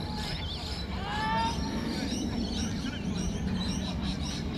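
Open-air sports-field ambience: distant voices of rugby league players and spectators, with birds chirping and a couple of gliding calls about a second in.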